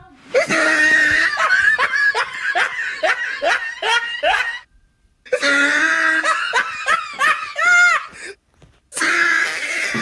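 A person laughing hard in rapid, pitched 'ha' bursts, about three a second, in three bouts broken by short pauses about halfway through and again near the end.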